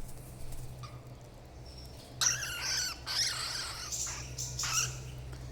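A pet bird giving a run of harsh squawking calls, starting about two seconds in and lasting about three seconds, over a steady low hum.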